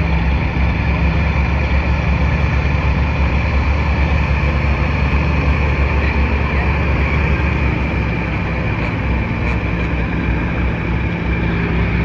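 A semi tractor's diesel engine running at a steady idle while the bobtail truck rolls slowly past. A steady high-pitched whine runs along with it.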